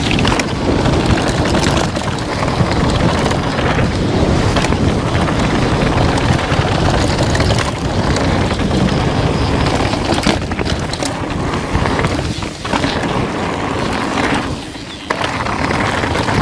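Downhill mountain bike ridden fast down a trail: a constant rush of tyre and rattling bike noise, with wind buffeting the action camera's microphone. The noise dips briefly twice near the end.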